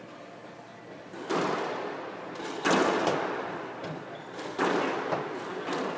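Squash rally: the ball is hit by racket and struck against the court walls, giving three sharp, echoing thwacks about a second and a half to two seconds apart, with lighter clicks in between.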